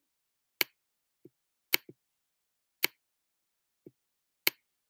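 Stylus tip tapping on a tablet screen during handwriting: four sharp clicks about a second apart, with fainter, duller taps in between.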